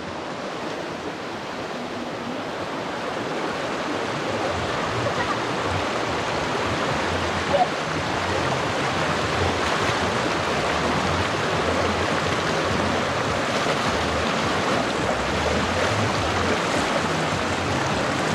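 Fast, shallow creek rushing and churning around the legs of hikers wading upstream through it, growing louder over the first several seconds. A brief knock sounds about seven and a half seconds in.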